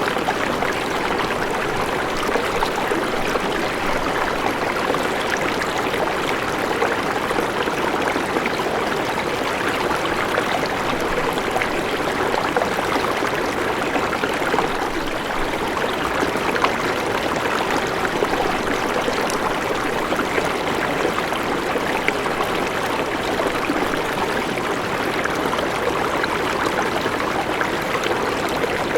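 River water flowing steadily over stones, a continuous rushing with fine splashing and trickling.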